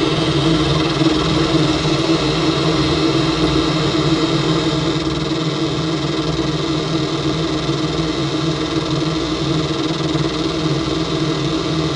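Automatic car wash machinery running with a steady, continuous hum.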